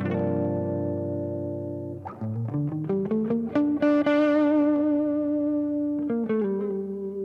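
Guitar music played through effects with some distortion: a chord rings out at the start, then a slow line of single held notes, one of them wavering with vibrato.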